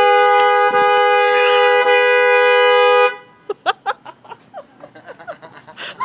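Car horn held down by a dog leaning on the steering wheel: a steady, loud two-note blare that cuts off suddenly about three seconds in.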